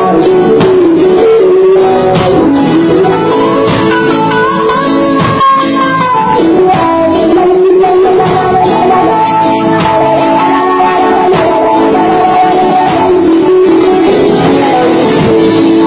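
Live reggae band playing, led by a Stratocaster-style electric guitar whose notes bend up and down over keyboard and drums.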